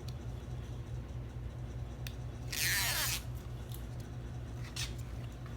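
Adhesive backing strip being peeled off the 3M tape on a carbon fiber door handle cover: one short ripping rasp about two and a half seconds in, with a few light clicks of the plastic cover being handled.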